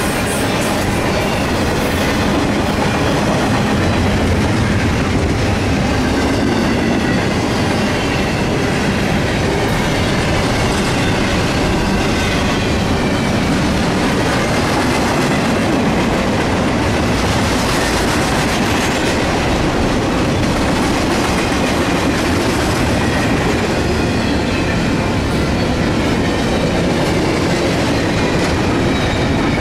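CSX intermodal freight cars, trailers on flatcars and double-stack container well cars, rolling past at close range with a steady rumble and clatter of steel wheels on the rails. A faint high squeal rises and falls now and then.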